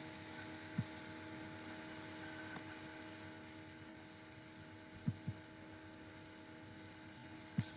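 Steady electrical hum from the recording setup, a faint drone made of several fixed tones. A few soft low thumps break in, once early, a quick pair about five seconds in, and once near the end.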